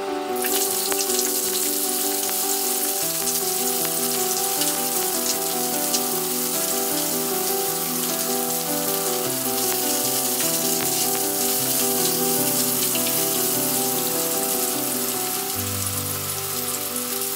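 Wiener sausage pieces and chopped onion sizzling in hot oil in a frying pan, the sizzle starting suddenly just after the start as the food goes into the pan and then running on steadily.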